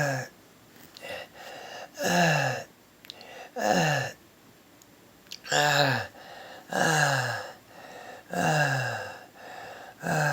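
A person's stridor: loud, harsh, gasping breaths about every one and a half seconds, each dropping in pitch, with quieter breaths between. It is the sound of air forced through a narrowed upper airway as the person struggles to catch their breath.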